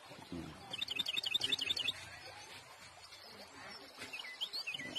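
Small birds chirping: a fast twittering run of high chirps about a second in, then scattered short rising chirps near the end.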